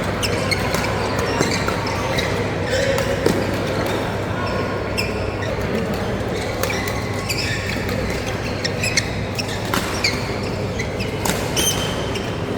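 A badminton doubles rally in a sports hall: irregular sharp racket hits on the shuttle and short high shoe squeaks on the court floor, over a steady background of hall noise and distant chatter.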